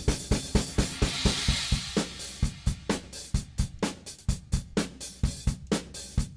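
Background music: a steady drum-kit beat with snare, bass drum and hi-hat, and a cymbal wash about a second in.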